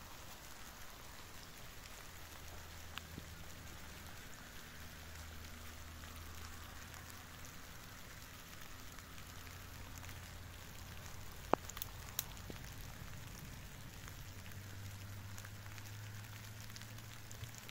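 Steady light rain falling, an even hiss, with a faint low hum underneath and a few sharp clicks, the loudest about two-thirds of the way through.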